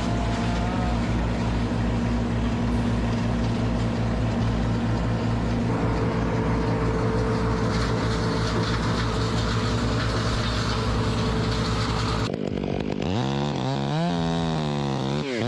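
A motor runs steadily for about twelve seconds. It is followed abruptly by a two-stroke chainsaw revving up and down repeatedly.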